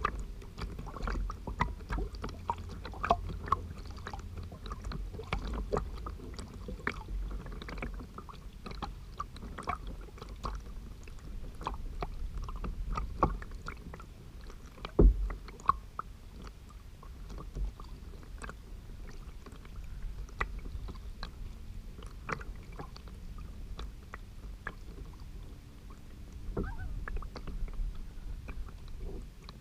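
Lake water lapping and splashing against a kayak's hull: many small irregular splashes over a low rumble, with one heavy knock about halfway through.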